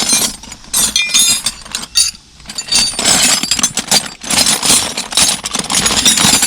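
Metal hand tools clattering and clinking together in quick, irregular jangles, as in rummaging through a toolbox for a flathead screwdriver.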